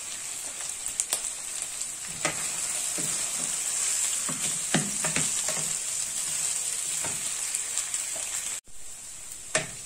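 Diced onion sizzling steadily in olive oil in a nonstick frying pan, being sweated soft, while a wooden spoon stirs it and scrapes the pan several times. The sound cuts out for an instant near the end.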